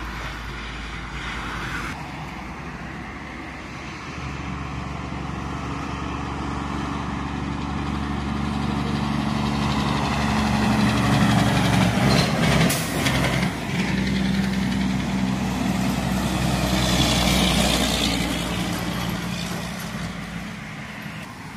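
Diesel semi-truck pulling a long trailer passing by on the road: its engine note builds as it approaches, is loudest as it goes past, then fades as it pulls away. A brief sharp noise comes about halfway through.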